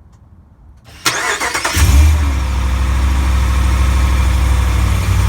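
2020 Ram 1500 pickup's engine being started: the starter cranks about a second in, the engine catches and settles into a steady idle. The owner reports a clunk from the driveshaft at start-up.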